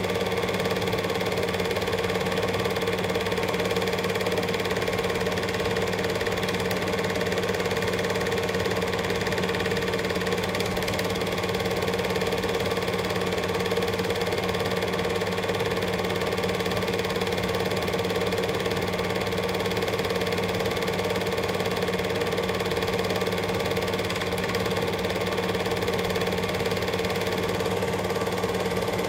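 Cine film projector running: a steady, rapid mechanical clatter from the film-advance mechanism, with a constant hum beneath it.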